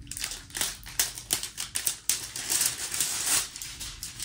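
Plastic packaging being handled and opened: a dense run of sharp clicks and crinkly rustles, busiest about two and a half to three and a half seconds in.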